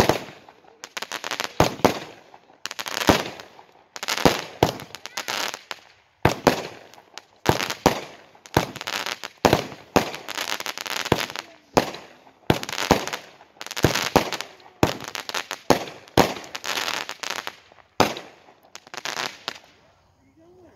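Fireworks going off in a steady series of aerial shots, roughly one a second, each a sharp bang followed by a short crackle. The shots stop shortly before the end.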